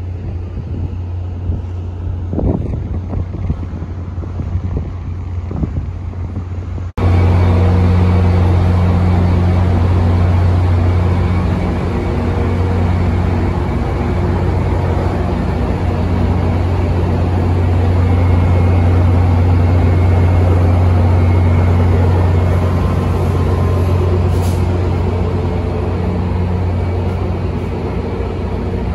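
For the first several seconds, wind buffets the microphone over a low hum. About seven seconds in, the sound cuts to a Siemens Charger diesel-electric locomotive's engine running close by, a loud, steady, deep drone with a few steady low tones that swells slightly midway.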